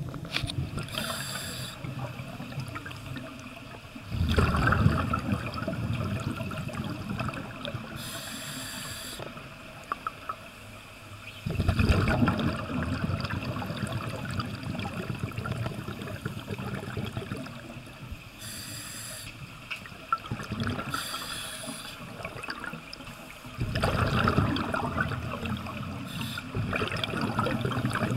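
Scuba regulator breathing underwater: three long, loud gurgling rushes of exhaled bubbles several seconds apart, with short high hisses in between and a steady bubbling underneath.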